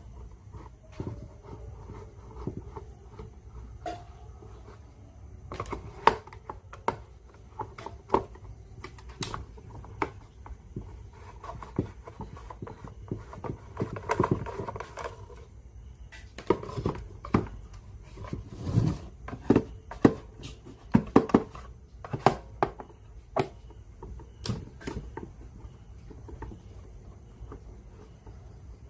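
Irregular clicks, taps and light knocks of hands and tools handling small parts, sharpest and busiest in the second half.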